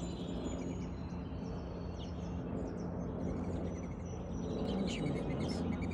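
Small birds chirping and calling now and then, in short high notes, over a steady low outdoor background rumble.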